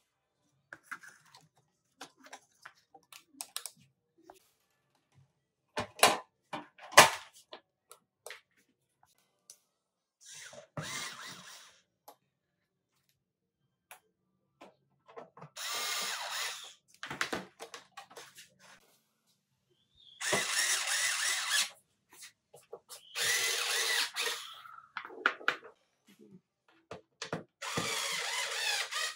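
Clicks and two sharp knocks from the stabilizer's sheet-metal case being handled and fitted, the knocks the loudest sounds. Then a cordless electric screwdriver drives screws into the steel cover in about five short runs of one to two seconds each.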